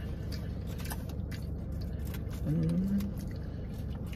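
Steady low rumble inside a parked car's cabin, with scattered small clicks and smacks of someone eating fries. About two and a half seconds in comes a short hummed "mm" from a person, rising slightly in pitch.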